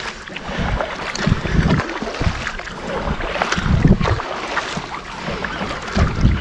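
Double-bladed paddles dipping and pulling through calm sea water beside an inflatable tandem kayak, with splashing and dripping from the blades. Wind rumbles on the microphone in low surges about every two seconds.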